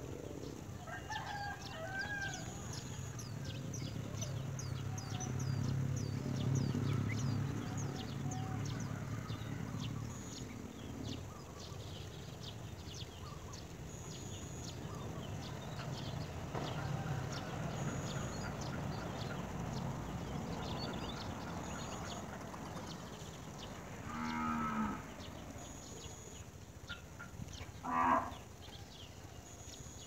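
Farm-animal sounds: a low drawn-out animal call lasting several seconds in the first third, many faint high chirps throughout, and two short calls near the end, the second the loudest.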